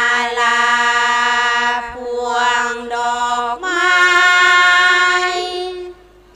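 Women's voices singing a Thai sarabhanya, Buddhist devotional verse chanted to a slow melody over microphones, with long held notes. The line steps up in pitch about halfway through and ends shortly before the close.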